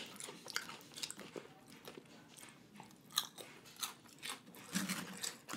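Close-up chewing of crunchy fried wonton chips topped with poke: a run of short, sharp crunches and wet mouth sounds.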